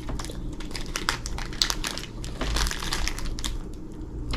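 Plastic snack wrapper crinkling as it is handled, a string of irregular crackles.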